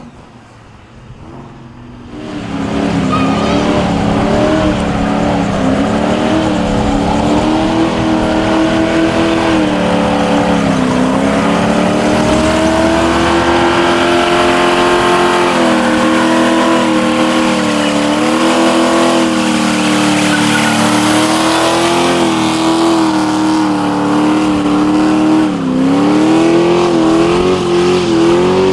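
V8 muscle car doing a burnout: the engine held at high revs while the tires spin, with a hiss of tire noise over it. The engine comes in loud about two seconds in, and the revs sag and climb back several times.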